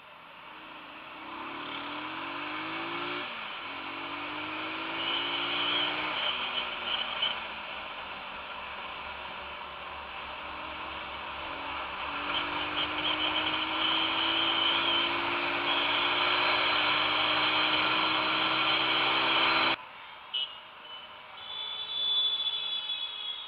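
Small motorcycle engine pulling away and shifting up, its pitch rising and dropping back a few times, then climbing slowly through one long acceleration, with wind rushing on the microphone. The sound cuts off suddenly near the end, leaving quieter street traffic.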